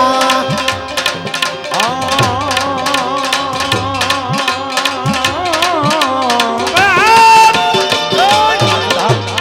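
Gujarati devotional folk music played live. A hand drum keeps a fast, steady rhythm, its low strokes bending in pitch, under a melody that slides and wavers up and down, with no sung words.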